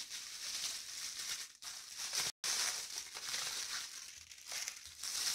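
Clear plastic bag around a new camera crinkling and rustling on and off as it is lifted from its box and handled.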